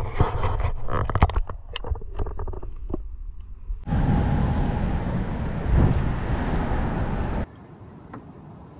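Splashing and knocking as a smallmouth bass is let go over the side of an aluminum boat, many sharp knocks over a low rumble. About four seconds in this gives way to a steady rushing noise that stops abruptly a few seconds later.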